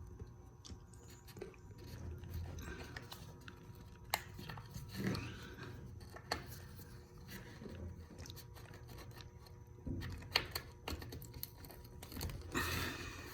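Handling noise of small plastic push-in tree fasteners and tie wraps being worked into holes: scattered sharp plastic clicks and crunching rustles, with one fastener hard to press in.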